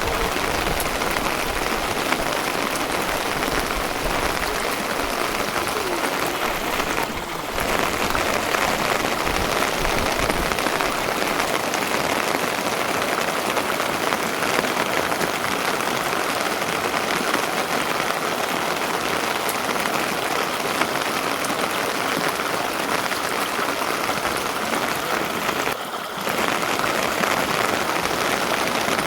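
Steady heavy rain, a dense even patter, dipping briefly twice: about seven seconds in and near the end.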